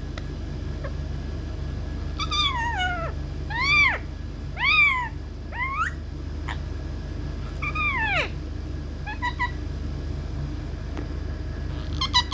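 Indian ringneck parrot giving a series of about six drawn-out calls, each rising and then falling in pitch, with a few short clipped notes between them.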